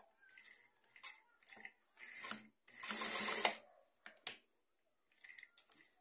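A sewing machine stitching through velcro tape and fabric in several short runs, the longest about a second long near the middle, with a few sharp clicks after it.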